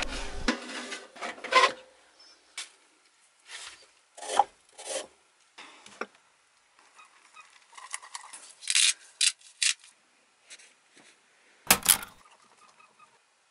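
Food-preparation sounds: a string of short scrapes and rubs of a utensil against a mixing bowl and baking gear, each lasting a fraction of a second. Near the end comes a louder double knock.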